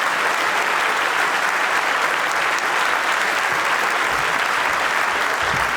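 A large congregation applauding steadily.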